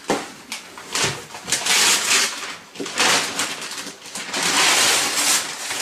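Gift wrapping paper and tissue paper rustling and tearing as a layered present is unwrapped, in several bursts of crackling, the longest near the end.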